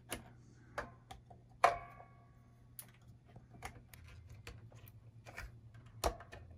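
Scattered light clicks and knocks of a wired plastic pickguard, with its pots and switch, being crammed down into a Stratocaster body's cavity. The sharpest knock comes about a second and a half in and rings briefly, over a faint steady low hum.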